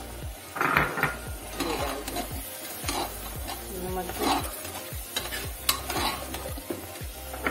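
A steel spoon stirring beef and spice masala sizzling in oil in an aluminium pressure cooker, scraping the pan about once a second, as turmeric powder is worked into the frying meat.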